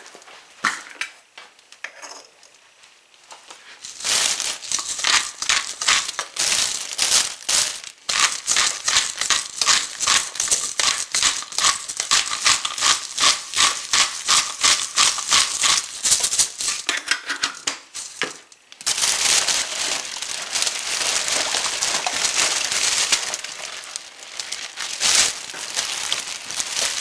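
Black pepper being shaken from a spice shaker: a quick, steady run of rattling shakes, several a second. After about fifteen seconds it gives way to the crinkling of a plastic oven cooking bag being gathered up by hand.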